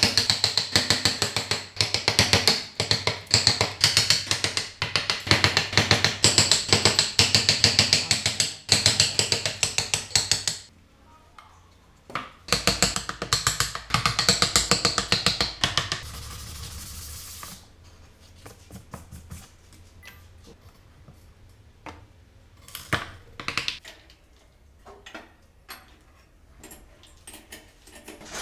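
Hand-carving wood with a chisel and a small carving gouge: rapid scraping cutting strokes, dense and loud for the first ten seconds and again briefly in the middle, then scattered lighter cuts and clicks.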